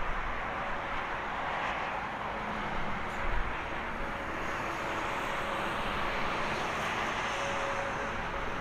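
Airbus A320neo's jet engines at taxi idle: a steady, even rushing whoosh, with a faint steady whine coming in near the end.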